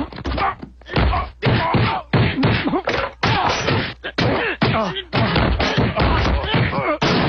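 A fast series of punching and whacking hits, one after another, with a voice crying out and grunting in pain between the blows.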